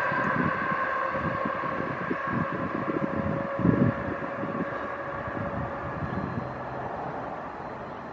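Amtrak Keystone electric train, hauled by an ACS-64 locomotive, running away at speed. A steady whine sits over the rumble of the wheels, with irregular low thumps, the strongest a little under four seconds in, and the whole sound fades as the train recedes.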